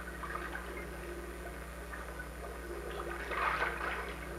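Bath water splashing lightly in a bathtub, louder splashing and gurgling near the end, over a steady low hum.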